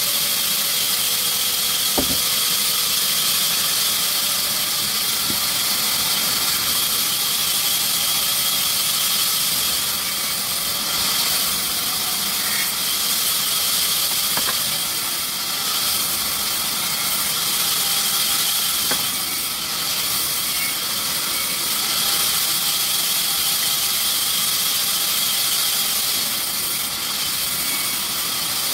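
Sawmill machinery running with a steady, loud, high hiss, with a few faint clicks.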